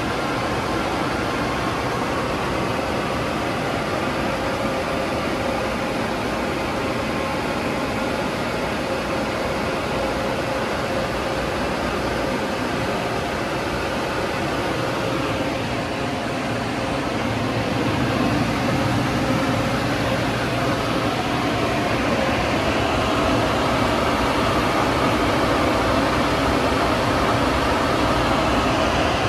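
Hydraulic-drive friction rollover car wash machine running with a steady rushing noise and a faint steady tone under it, getting louder a little past halfway through.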